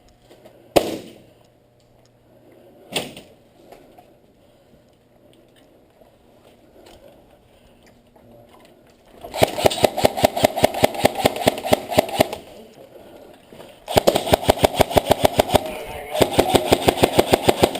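Airsoft guns firing: two single shots about a second and three seconds in, then two long strings of rapid automatic fire from about halfway through, the second with a short break near the end.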